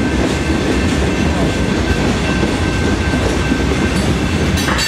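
Freight train of hopper cars rolling past, a steady rumble and clatter of steel wheels on the rails.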